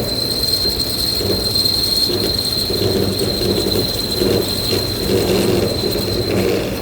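CNC drilling machine boring with an indexable insert drill and through-spindle coolant: a steady high whine over a rumble that swells and fades, with a continuous hiss.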